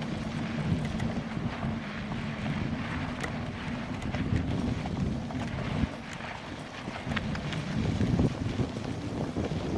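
Wind buffeting the camera's microphone during a ride into a headwind: a continuous low rumble, with scattered small clicks and rattles.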